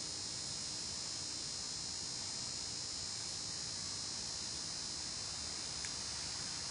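Steady high-pitched insect chorus, like crickets trilling without a break, with one faint tick about six seconds in.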